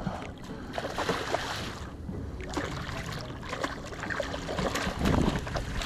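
Water splashing and irregular knocks against a kayak while a hooked redfish is landed.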